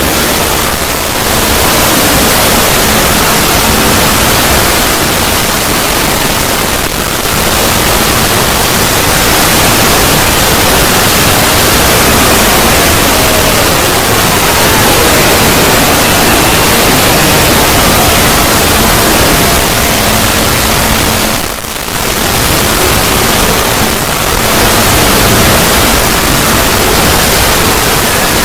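A 'void' sound effect: loud, steady rushing noise like dense static, with faint tones buried in it. It dips briefly about three quarters of the way through.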